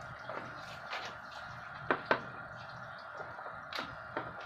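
A handful of faint, scattered ticks from wire leads being touched to the pins of a 5-pin automotive cooling-fan relay, over a faint steady hum. The relay itself gives no click when its coil is powered, the sign that its coil side is faulty and the relay is bad.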